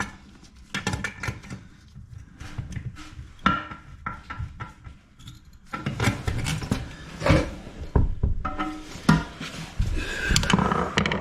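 Irregular clicks, knocks and rubbing of a tool and toilet parts as a fitting on the toilet is tightened. The clicks get busier in the second half.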